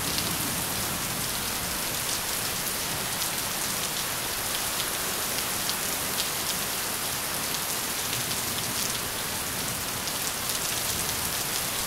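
Heavy rain falling steadily, with scattered drops striking close by as sharp ticks.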